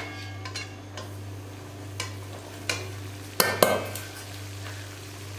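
Metal spatula stirring flour into hot ghee in a metal kadhai, with a faint sizzle and a steady low hum underneath. A few sharp knocks of metal on the pan come in the second half, the loudest two close together about three and a half seconds in.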